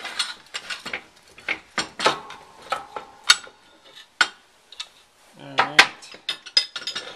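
Heavy steel press-die tooling clanking and clinking in a series of sharp knocks as the top die is pried loose with a small crowbar and lifted off the freshly formed steel plate.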